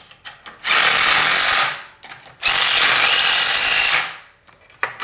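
Cordless DeWalt impact driver hammering bolts into a propeller hub, threading them in to draw the drive lugs through. It runs in two bursts of about a second and a second and a half, with a third starting near the end, and small clicks of the socket on the bolts come between.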